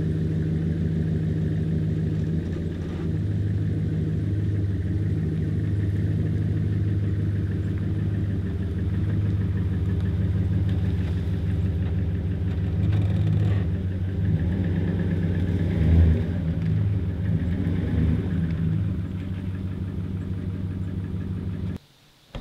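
Ram 1500 pickup truck's engine running steadily at low revs while the truck is driven slowly into position. There is a low thump about two-thirds of the way through, and the sound cuts off abruptly near the end.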